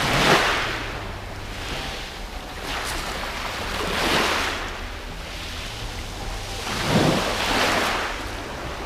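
Sea waves breaking on a shingle beach, with three surges about three to four seconds apart over a steady low wind rumble.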